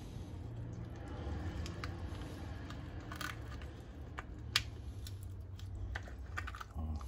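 Raw lobster tail shell being pried apart by hand: scattered crackles and clicks of the shell, with one sharp snap about halfway through, over a low steady rumble.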